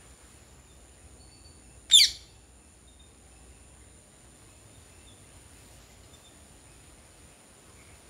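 A bird's single short, shrill call, falling steeply in pitch, about two seconds in.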